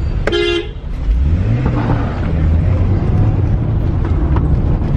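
A short horn toot, then a car engine revving up as the car accelerates hard, heard from inside the cabin. The engine is a freshly swapped-in Japanese engine.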